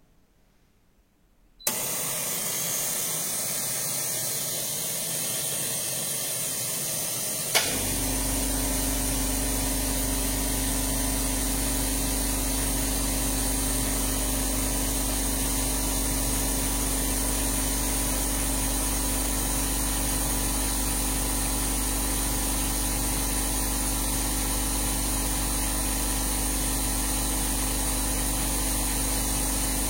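A machine starts suddenly about two seconds in with a steady hiss. About seven and a half seconds in, a click is followed by a low steady motor hum, and both run on evenly.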